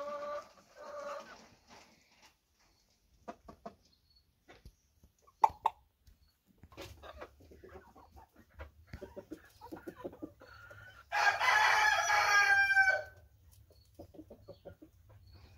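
Chickens clucking softly with scattered short calls, then a rooster crows once, loudly, for about two seconds, about eleven seconds in.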